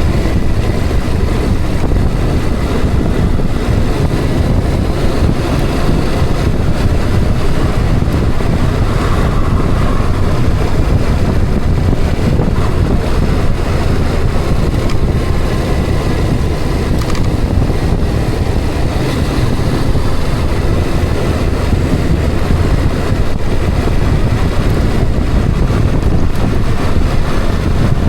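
A vehicle on the move: steady, loud road and engine rumble with wind buffeting the microphone.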